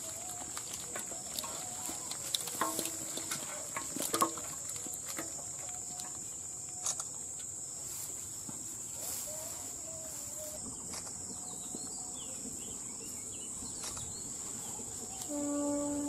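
Small live fish, climbing perch and catfish, flap and slap in a metal bowl as they are shaken out of a mosquito-net trap. This gives a scatter of knocks and splashes in the first few seconds, the loudest about four seconds in. Under it runs a steady high insect drone from crickets.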